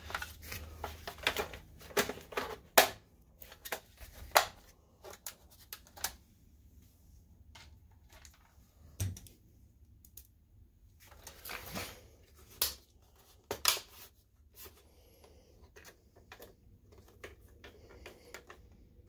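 Irregular plastic and metal clicks and knocks from a BenQ HT1075 projector's rear input panel and case being fitted back onto its chassis, thickest in the first few seconds and again a little past the middle.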